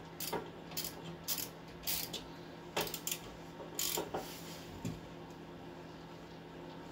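Irregular sharp clicks and knocks, about one every half second, from hands working at a wheel hub bearing assembly and its mounting bolts on the steering knuckle; they die away in the last couple of seconds.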